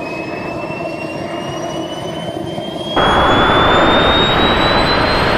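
JetCat microjet turbine spooling up toward full throttle: a steady roar under a high whine that climbs smoothly in pitch. About three seconds in it becomes suddenly much louder and fuller, heard from right beside the engine.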